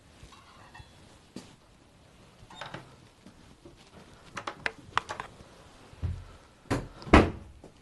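Irregular knocks, clicks and a few low thumps of someone moving about a small room, with a cluster of clicks about halfway through and the loudest knock near the end.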